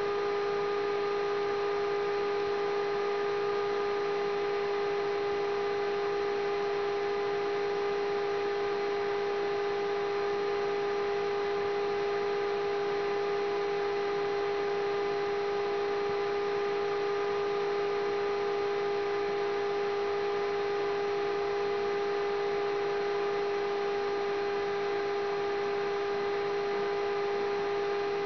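A steady, unchanging hum: one strong mid-pitched tone with fainter overtones above it, over a light hiss.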